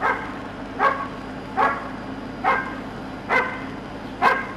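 A dog barking steadily, six short barks evenly spaced a little more than one a second.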